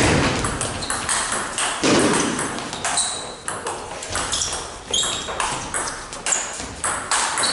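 Table tennis rally: the plastic ball clicking off the rubber-covered bats and bouncing on the table in a quick, uneven series of sharp pings.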